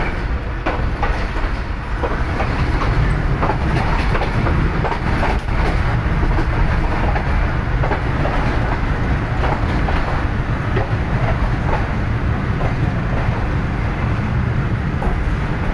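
Passenger train coach running along the track, heard through an open doorway: a steady loud rumble with wheels clicking over the rail joints.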